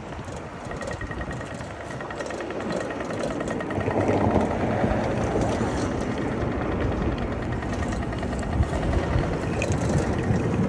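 Steady street and traffic noise with vehicles going by, growing louder about four seconds in.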